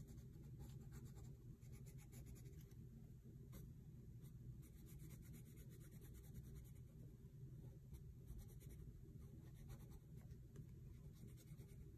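Faint scratching of a red colored pencil shading on drawing paper in quick, repeated strokes, over a low steady hum.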